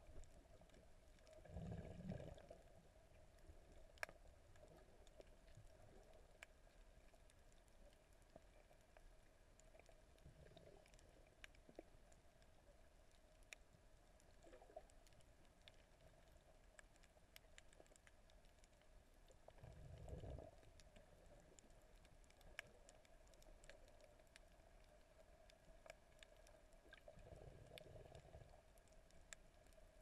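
Faint, muffled underwater sound heard through a camera's waterproof housing: a steady low hum with scattered faint clicks, and low rumbling swells of moving water four times, the first as the camera goes under.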